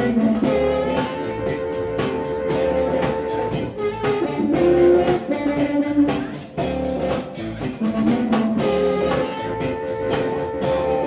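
Electric blues band playing: electric guitar over bass and a drum kit keeping a steady beat.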